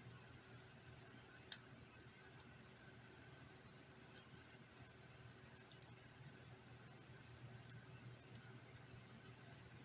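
Faint scattered clicks and taps of small tablet parts and tools being handled during a battery replacement, about six in all: one a second and a half in, a few near the middle, over a low steady hum.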